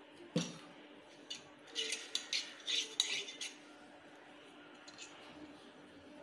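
Stainless-steel idiyappam press being handled and greased inside with oil, its metal parts clinking and scraping in a quick cluster between about two and three and a half seconds in. A single sharp click comes about half a second in.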